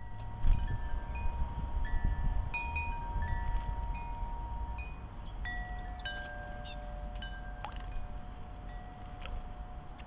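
Wind chime ringing, several notes struck one after another and each ringing on for seconds so that they overlap. Wind rumbles on the microphone, more strongly in the first half.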